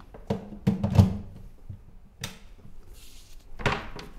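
Handling noise from a power cable being worked in behind a bookshelf speaker on a desk: a few light knocks, the loudest a thump about a second in, another knock a second later, and a brief rustle near the end.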